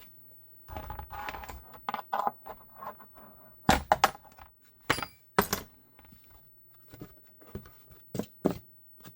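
Work-bench handling of a formed Kydex holster and hand tools: rustling, then a run of sharp hard clacks and taps, spaced irregularly.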